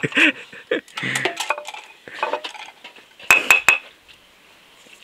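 Tableware clinking at a meal: three quick, ringing clinks of utensils against dishes in close succession a little past the middle.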